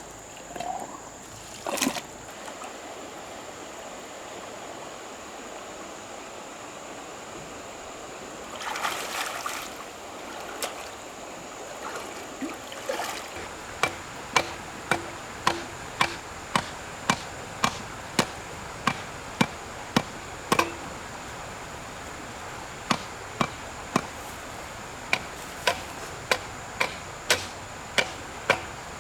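Steady trickle of running water. About halfway through, a long run of sharp, evenly spaced chopping strikes begins, nearly two a second, with a short break near the end.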